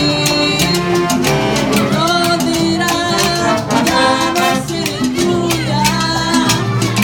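Jazz band playing a Latin-style arrangement with a steady beat, bass, and melody lines.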